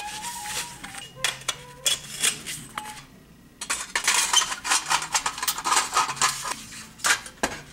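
Thin metal chimney tubes clinking against each other, with short ringing tones. About three and a half seconds in, a longer stretch of metal scraping and rattling begins as the pipe end is worked into the side hole of a tin-can stove.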